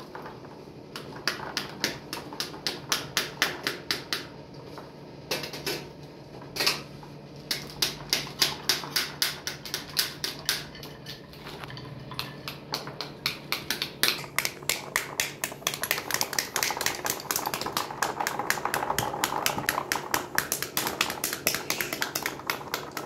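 Rapid, regular knocking of pomegranate halves being struck on their rinds, about three to four knocks a second with short pauses, to knock the seeds out into a plastic basin.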